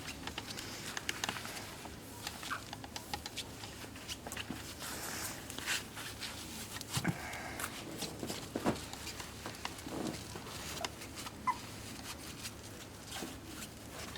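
Irregular light clicks and taps of a Pembroke Welsh Corgi puppy's paws and claws as it moves about.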